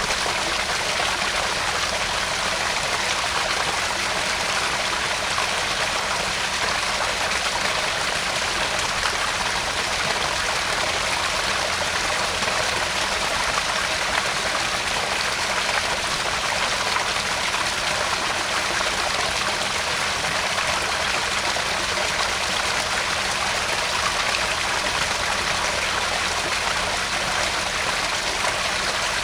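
Garden pond waterfall: water spilling and trickling steadily into the pond, an even rushing sound with no breaks.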